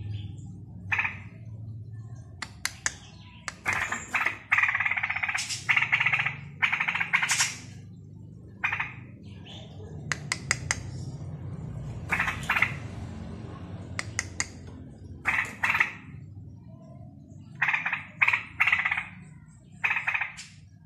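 A young straw-headed bulbul (cucak rowo) practising its song: short warbling phrases repeated again and again with pauses between them, plus a few sharp clicks.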